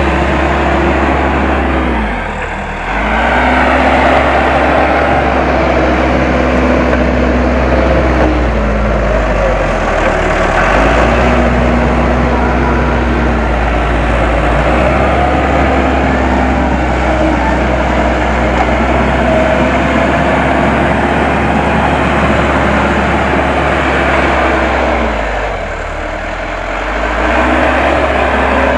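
Case 580M backhoe loader's diesel engine running under work, its pitch and loudness dipping briefly and then recovering about two seconds in, again around ten seconds in, and near the end, as the machine takes load.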